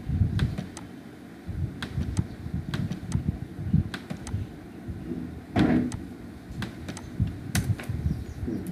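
Computer mouse clicking, a dozen or so short sharp clicks spread irregularly, over a low rumbling background noise.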